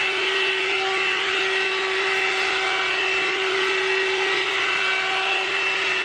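Hot air brush (one-step hair dryer and styler) running steadily: a motor whine holding one pitch over the rush of blown air.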